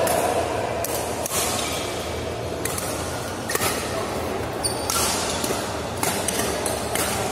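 Badminton rally in a large hall: rackets striking the shuttlecock back and forth, a sharp hit every second or so, over a steady low hum.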